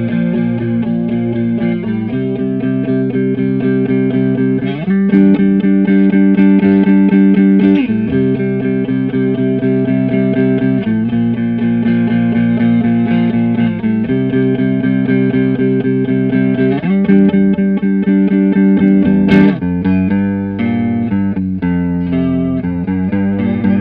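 Electric guitar through a Stoy Sound Choir Boy analog bucket-brigade chorus pedal, with a Boss Blues Driver adding boost or light overdrive, playing a repeating chord riff. The chords ring out and change about every three seconds, several of them reached by an upward slide.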